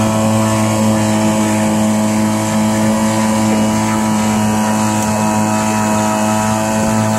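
Aqua Bug outboard motor running at a steady speed, pushing a square-stern canoe along, with an even drone that holds one pitch throughout.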